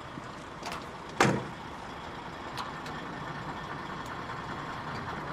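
Truck engines idling with a steady low hum, and one sharp knock about a second in: the truck's cab door being shut. A few lighter clicks follow.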